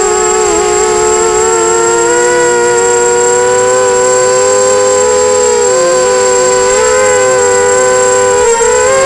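250-size FPV racing quadcopter's brushless motors and propellers whining loudly, heard through its onboard camera; the pitch holds steady but wavers and dips briefly a few times as the throttle changes. A thin, steady high-pitched tone runs above it.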